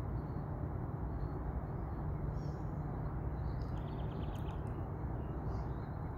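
Steady low outdoor rumble with faint bird chirps now and then, and a short, quick twitter about four seconds in.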